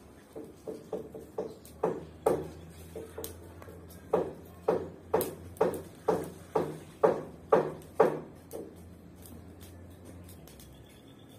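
A long-handled yard tool scraping and sweeping the ground in quick strokes, about two a second, which stop a little before the end. A low steady hum runs underneath.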